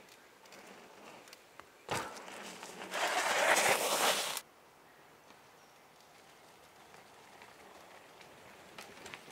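Mountain bike passing close by on a wet dirt trail: tyres rolling and crunching over the dirt, loudest for a second or so as it goes by, then cutting off suddenly. Faint clicks and crackles from the trail follow near the end.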